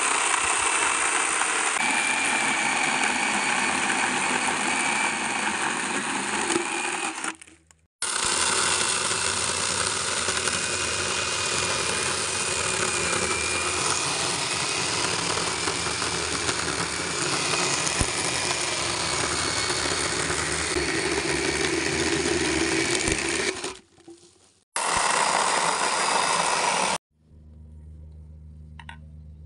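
Cordless battery-powered Catpower chainsaw running and cutting through a dry fallen log, in long stretches that cut off abruptly twice. Near the end it gives way to a much quieter, steady low hum.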